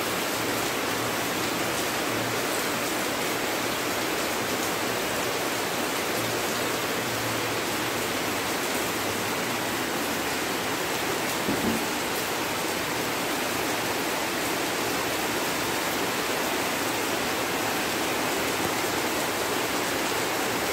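Steady hiss of rain falling, with a single brief low thump about halfway through.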